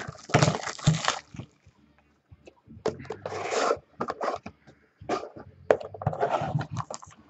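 Trading-card hobby box and its pack being handled, with scraping and rustling of cardboard and wrapper in several short spells and a few clicks.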